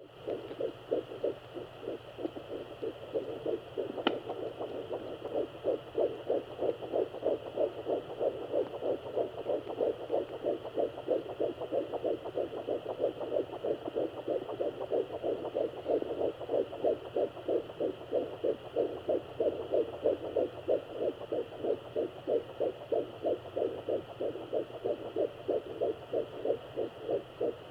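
Fetal heartbeat at 10 weeks heard through a Doppler ultrasound, a fast, even whooshing pulse at about three beats a second over a steady hum, with one short click about four seconds in.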